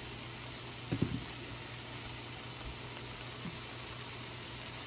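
Diced potatoes frying in oil in a skillet: a steady, even sizzle, with one short knock about a second in.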